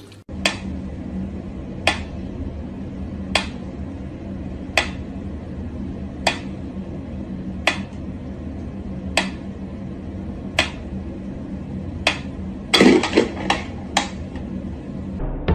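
Sharp clicks or knocks repeating evenly about every second and a half over a steady low hum, with a louder burst of clatter and quicker clicks near the end.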